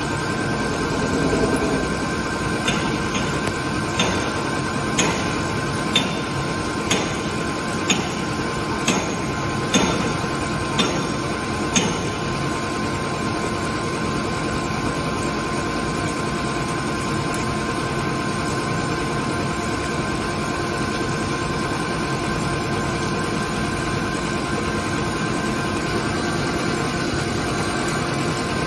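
ALCK6163X1500 CNC lathe machining under coolant: a steady machine noise with a constant whine. From about three seconds in to about twelve seconds in there is a run of about ten sharp ticks, roughly one a second.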